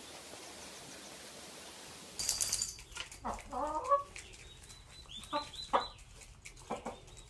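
Faint steady hiss, then about two seconds in a sudden sharp rustle, followed by a chicken clucking in several short bursts.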